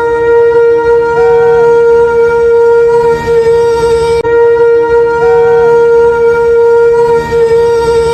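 A shofar blast held on one steady note throughout, with a brief higher note sounding over it about a second in and again about five seconds in.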